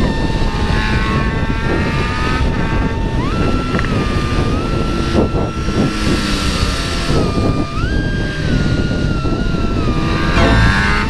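Motorcycle riding at speed: engine noise over a steady rush of wind, with the engine note rising in the first few seconds.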